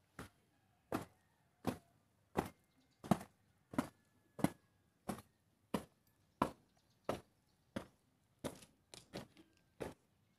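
A steady beat of sharp knocks, about three every two seconds, keeping a marching cadence. Around nine seconds in, the beat briefly breaks into a few quicker, uneven knocks.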